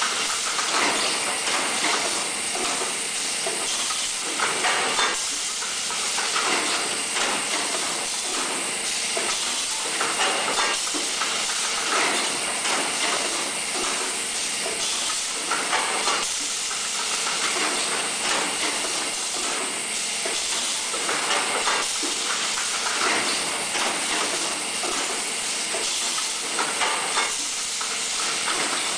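Automatic brick-bag vacuum packing machine running: a steady air hiss from its pneumatic system, broken every second or two by short clacks of its cylinders and mechanism.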